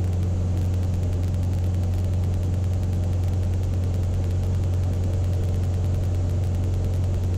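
Cessna light airplane's piston engine and propeller droning steadily inside the cockpit, with a strong low hum. The engine is still at climb power, before being throttled back to about 2600 RPM for cruise.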